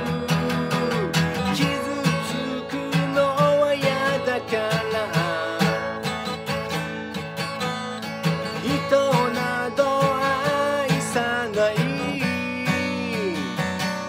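Acoustic guitar strummed steadily while a man sings along.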